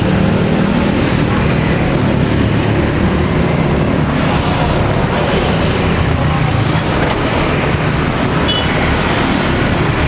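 Steady street traffic noise, a continuous low rumble of motor vehicle engines.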